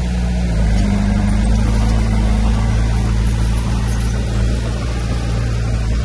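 Heavy construction machine's diesel engine running steadily under load, its pitch stepping up slightly about half a second in.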